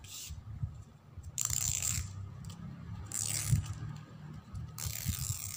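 Pink craft ribbon being torn lengthwise by hand into narrow strips: four short ripping sounds, with handling noise between them.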